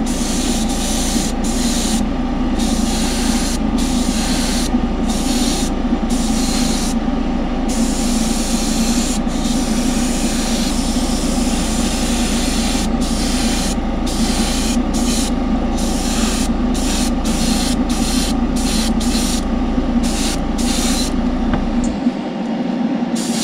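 Spray booth fan running with a steady hum, while an airbrush hisses in short stop-start bursts as a pearl white coat is sprayed; the bursts come quicker in the second half.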